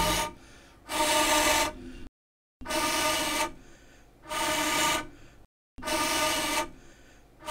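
Four long breaths blown through a blowpipe into a wood cooking fire, each a breathy rush with a hollow pipe note, to fan a fire of green wood that won't catch.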